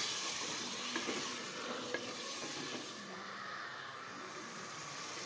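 Chopped tomatoes and meat frying in oil in an aluminium pressure cooker: a steady sizzle, a little louder at first, while a wooden spoon stirs them with a few light scrapes.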